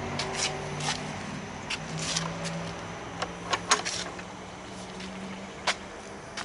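A low, steady engine-like hum that shifts slightly in pitch about two seconds in, with scattered sharp clicks and taps.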